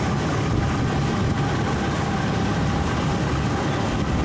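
Motorboat engine running steadily under way, with a continuous rush of water from the churning wake.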